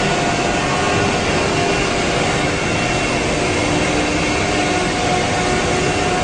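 A Xintech CNC wood router running, giving a loud, steady machine whir with a few faint held tones in it. The level stays even throughout.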